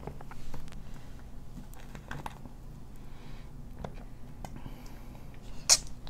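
Faint drinking sounds from ginger ale being swallowed straight from a 2-liter plastic bottle: scattered small clicks, with one sharper, louder click near the end.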